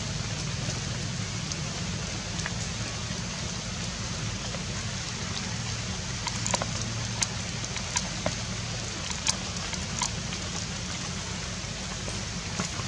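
Steady rain falling, an even hiss, with scattered sharper drips ticking from about six seconds in.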